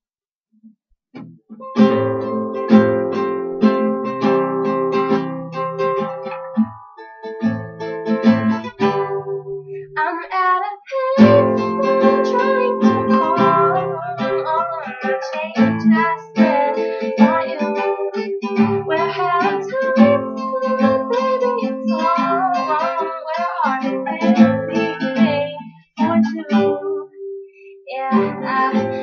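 Acoustic guitar strummed in chords, starting about two seconds in and breaking off briefly twice, with a voice singing over it from about ten seconds in.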